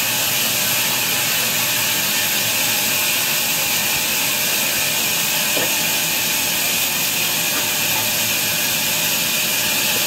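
Vertical band saw running while ripping a large timber log lengthwise: a loud, steady, hissing saw noise that holds unbroken throughout.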